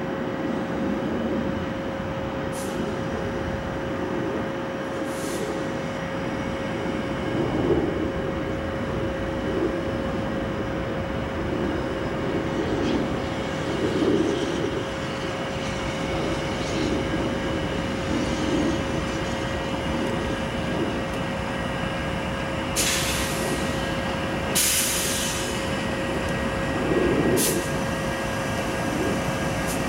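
Union Pacific diesel locomotives approaching slowly, their engines running with a swelling rumble under a steady high tone. Several short hisses come in the last few seconds.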